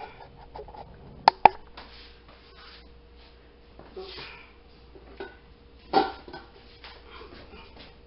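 Kitchen handling sounds from a lidded enamelware roasting pan being carried to a countertop toaster oven. There are two sharp clicks about a second in, a brief rustle, and a knock about six seconds in.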